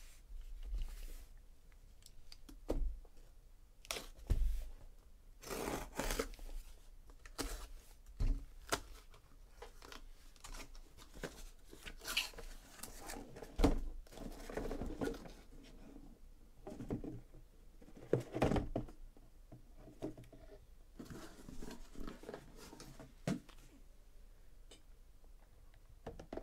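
A cardboard shipping case being opened by hand: packing tape torn and the flaps pulled open, with irregular rustling and scraping and several soft thumps as the shrink-wrapped boxes are taken out and set down in stacks.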